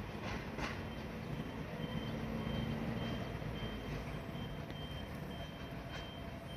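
Distant freight train being shunted: a low steady hum over the first few seconds, a thin high-pitched whine that sets in about a second in and holds, and a few faint clanks from the coal hopper wagons.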